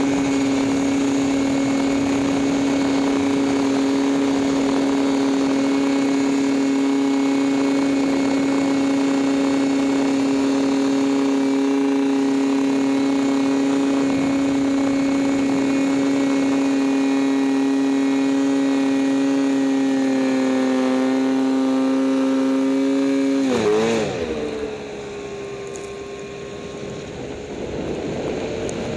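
Arctic Cat M8 snowmobile's 800 cc two-stroke twin running at steady high revs under full throttle on a hill climb. About three-quarters of the way through, the throttle comes off: the revs drop sharply and the engine runs on at a lower, uneven note.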